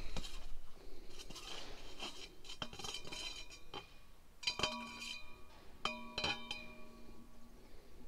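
Steel bar clinking against the top fitting of an engine oil centrifuge as it is fitted. Light clicks and taps come first, then sharper clinks about four and a half and six seconds in that ring on briefly like struck metal.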